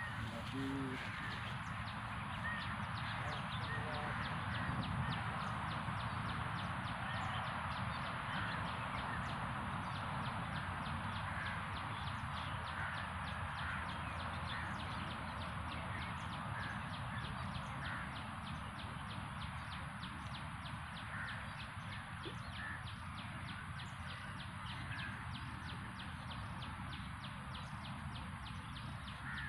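Steady outdoor hiss with short, faint bird calls now and then.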